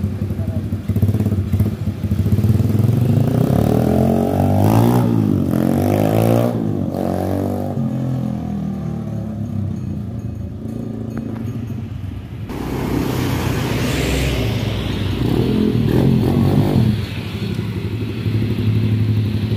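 Small 110cc four-stroke mini trail bike engine running as the bike is ridden, its pitch rising and falling several times as it revs up and eases off. About twelve seconds in the sound cuts suddenly, and the engine carries on revving up and down.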